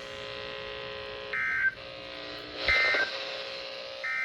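NOAA Weather Radio SAME end-of-message signal: three short bursts of digital data tones about 1.3 s apart, the third starting near the end, marking the close of the EAS alert. A steady hum from the radio lies between the bursts.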